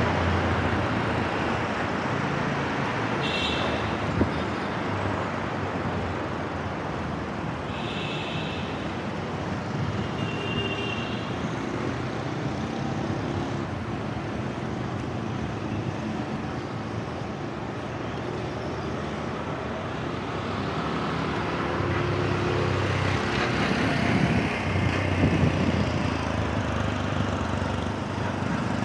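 Street traffic noise heard while cycling: motor vehicles running nearby over a steady rush of road and wind noise. There are a few brief high-pitched tones in the first half, and the traffic grows louder near the end.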